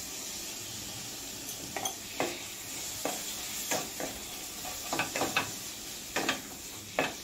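Prawns sizzling in hot oil and masala in a stainless steel kadai, with a spatula scraping and knocking against the pan as they are stirred. The sizzle is steady; the spatula strokes start about two seconds in and come irregularly, roughly a dozen of them.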